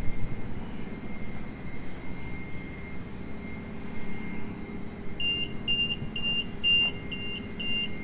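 Automatic slide gate operator running: a steady low hum, joined about five seconds in by a high-pitched warning beeper sounding about twice a second.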